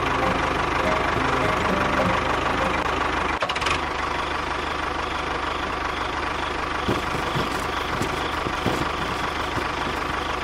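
Engine running steadily at idle, with a brief drop about a third of the way through and a few sharp knocks in the second half.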